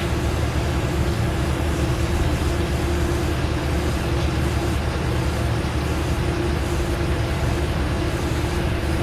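Machinery running steadily: a continuous low rumble with a steady hum.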